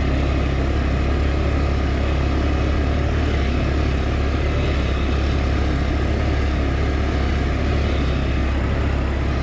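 A 200cc ATV engine running steadily while riding along, a constant drone with no revving up or down.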